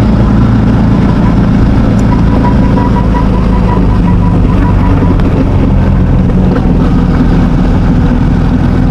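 Motorcycle engine running steadily at cruising speed while riding, with a low even hum and road and wind noise.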